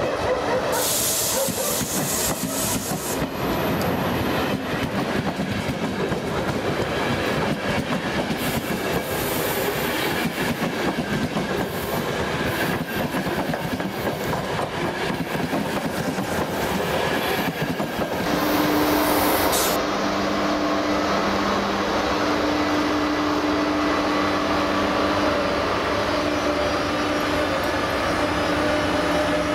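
Passenger coaches of an express train passing close at speed, a steady rumble with the clatter of wheels over rail joints. About two-thirds in the sound changes to an electric-hauled train running past, a steadier rumble with a low electric hum.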